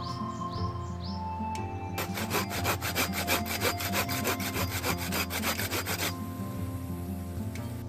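A folding hand saw cutting through a firewood log in quick, even back-and-forth strokes that start about two seconds in and stop about six seconds in, over soft background music.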